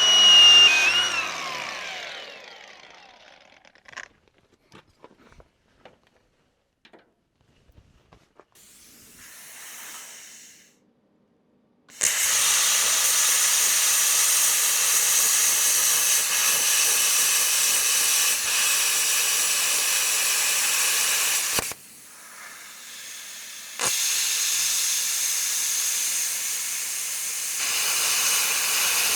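A power tool's whine fading as it spins down, then a few light clicks, then a loud steady hiss in two long stretches, about ten seconds and then about five, with a short break between.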